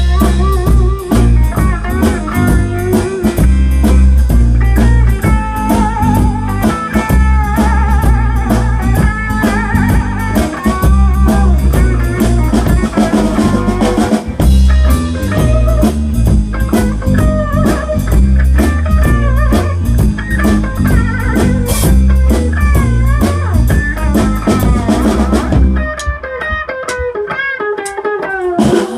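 A live band plays an instrumental passage with no singing: an electric guitar plays a lead line with bent, wavering notes over a bass guitar and a drum kit. Near the end the drums and bass stop and the guitar plays on alone for a few seconds.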